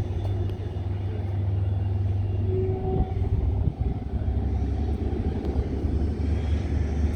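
Steady low rumble of a distant aircraft engine, its pitch dropping slightly about five seconds in.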